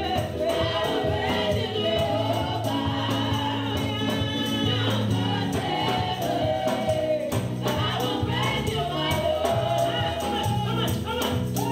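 Upbeat gospel praise song: several women singing into microphones over an amplified keyboard and bass line, with the congregation singing along and a bright shaken percussion keeping the beat.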